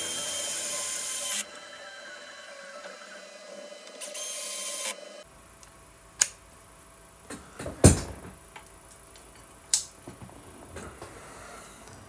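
Cordless electric screwdriver running in two short bursts as it drives screws into a plastic project-box lid, the first about a second and a half long, the second under a second. Then a few sharp clicks and knocks, the loudest about eight seconds in.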